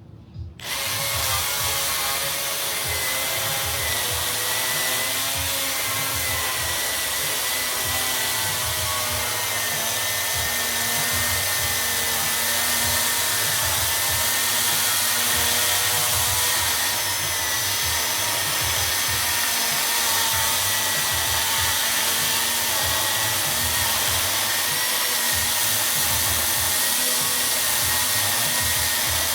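Milwaukee M18 cordless electric chainsaw running at speed, a steady motor whine with chain noise, starting abruptly about half a second in.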